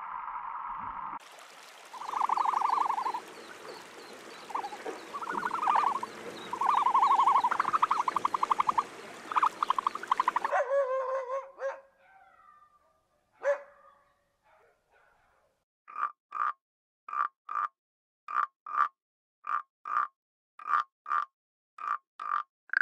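Frogs croaking. First comes a run of loud, rattling croaks over a steady hiss. After a quieter stretch, a frog gives short croaks in pairs, one pair about every second and a bit, at an even pace.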